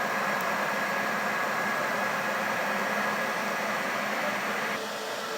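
Fired-up blacksmith's forge running with a steady rushing noise at full burn, easing a little in level near the end.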